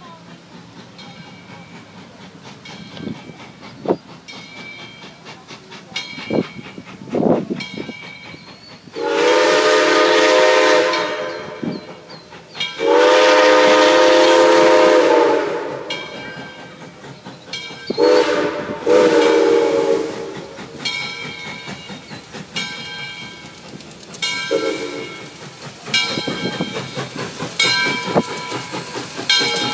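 Southern Railway 2-8-0 steam locomotive No. 630 approaching. Its steam whistle blows two long blasts about nine and thirteen seconds in, then shorter blasts around eighteen to twenty seconds and once more near twenty-five seconds. Between blasts come its rhythmic exhaust beats, which grow louder as it draws near.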